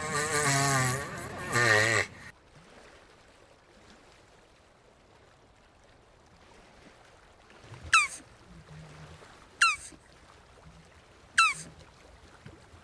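Jabuti (South American tortoise) calling: a wavering, pitched groan for about two seconds, then after a pause four short, sharp downward-sliding squeaks about a second and a half apart.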